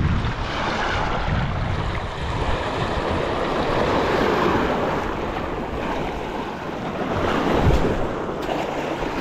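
Sea surf washing in and out against shore rocks, swelling and ebbing every few seconds, with wind buffeting the microphone.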